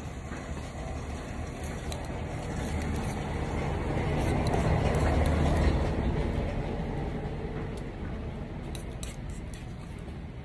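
A metal spoon scraping and clicking against a grilled egg's shell, over a low rumble that swells to its loudest about halfway through and then fades away.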